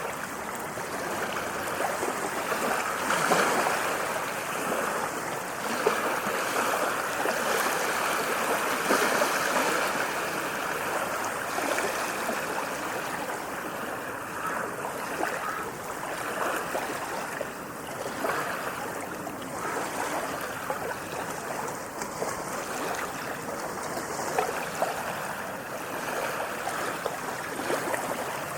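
Waves washing in, a continuous rush of water that swells and eases every few seconds, with small splashes now and then.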